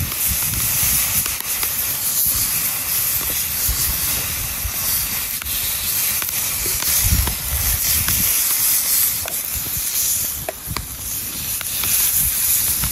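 Burgers sizzling in a frying pan over a wood fire: a steady high hiss, with a few sharp ticks and a low rumble underneath.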